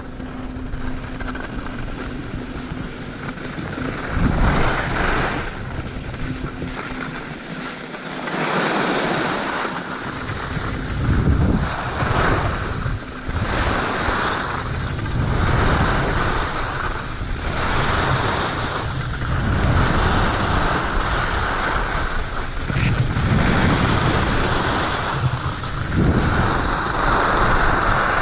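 Skis scraping and hissing over packed snow, swelling and fading in repeated surges as the skier turns, with wind rushing over the camera microphone.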